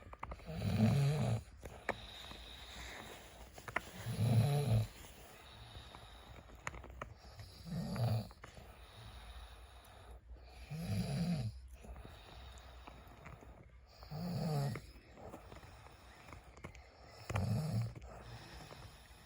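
A man snoring in deep sleep, six rhythmic snores, one about every three and a half seconds, each lasting about a second.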